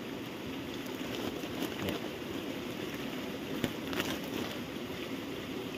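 A woven plastic sack being handled, with faint rustling and a few light clicks, over a steady background hiss.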